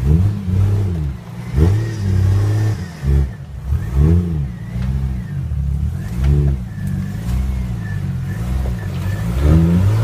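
Jeep Wrangler TJ engine revving up and falling back again and again, roughly once a second, as it crawls up a steep rocky climb under load.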